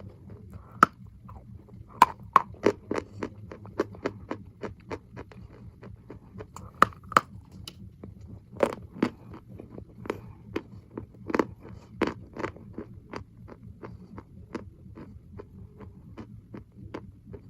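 Close-up crunching and chewing of edible chalk: a run of sharp, irregular crunches, about two to three a second, with a few louder snaps of the chalk breaking.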